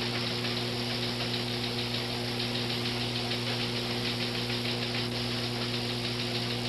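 Newsroom teletype machines clattering, a fast steady mechanical ticking over a low electrical hum.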